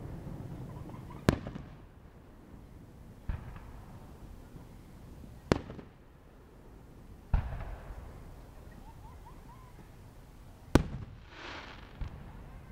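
Fireworks bursting: about six sharp bangs a couple of seconds apart, some louder and some fainter, with a brief crackling hiss after the loud bang near eleven seconds.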